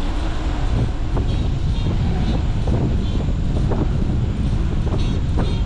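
Wind buffeting the microphone of a camera on a moving road bike: a steady low rumble, with the tyres running on pavement. A few short, light knocks come through over it.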